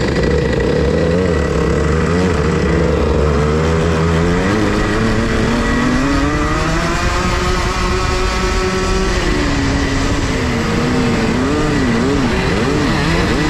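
Go-kart engine heard from on board on an ice track. Its pitch climbs steadily as the kart accelerates, drops sharply about nine seconds in as the throttle is lifted, then rises and falls several times.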